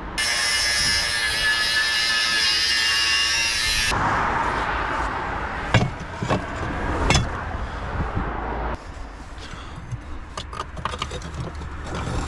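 Rusty scrap metal being loaded into a plastic tub in a car boot, with a few sharp metal clanks and knocks. For the first four seconds a loud steady rushing noise covers everything, then cuts off suddenly.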